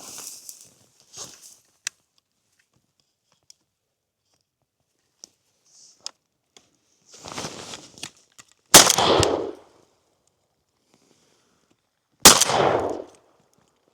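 Two shotgun blasts about three and a half seconds apart, each sharp and loud and dying away over about a second. A softer rustle comes just before the first shot.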